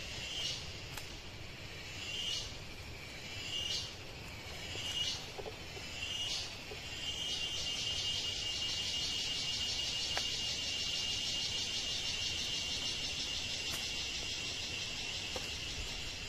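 An insect calling in the forest: short, high buzzy calls about every second and a half, then from about seven seconds in a continuous high, rapidly pulsing trill.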